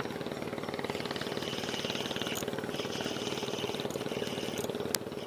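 A small engine running steadily with a fast, even pulse, and a single sharp click near the end.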